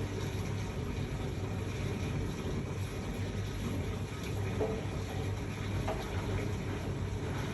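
Miele washing machine with an inverter-driven motor running through an intermediate spin: a steady hum from the motor and drum with water noise from the wash.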